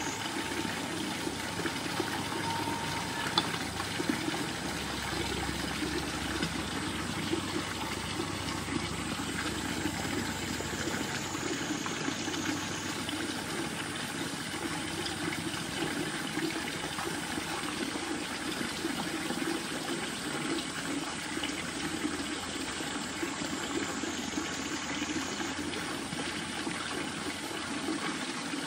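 A steady, unbroken rush of flowing water, like a nearby stream.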